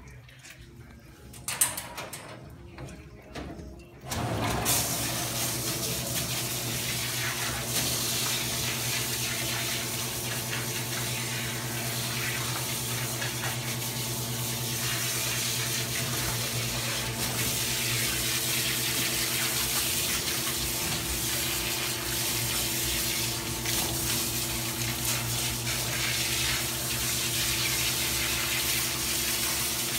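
Water spraying from a grooming tub's hose sprayer onto a poodle's wet coat and splashing off the steel tub, starting about four seconds in after a few light knocks, with a steady low hum underneath.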